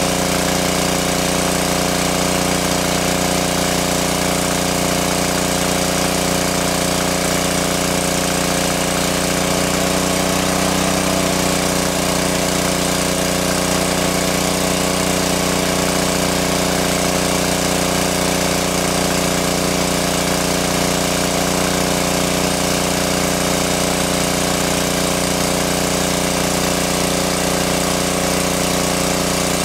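Small engine of a water pump running steadily, pumping water out of a lake.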